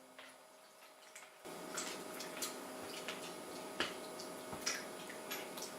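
Faint scattered clicks and taps of kitchen things being handled over a steady low hum, after about a second and a half of near silence.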